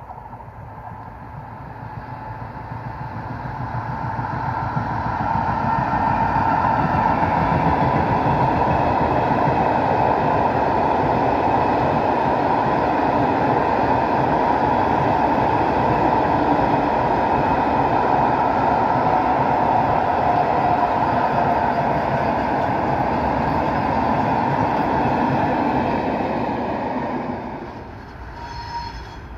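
Long freight train of powder tank wagons approaching and rolling past, a steady rumble of wheels on rail. It builds over the first several seconds, holds steady and loud, then breaks off abruptly near the end.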